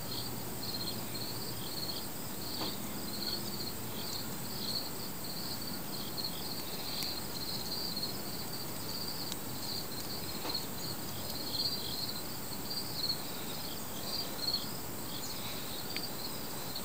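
Insects chirping steadily in a high-pitched pulsing trill, with a few soft handling sounds from a nylon rope being knotted.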